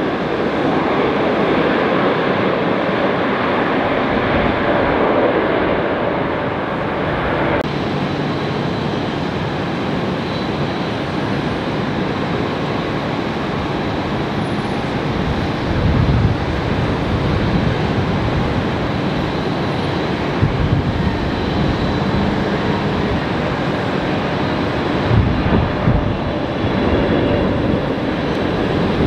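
Jet airliner engines: a Boeing 747 freighter rolling down the runway after landing, then, after a cut about eight seconds in, a Boeing 777 freighter's engines on final approach. Several brief low rumbles break through in the second half.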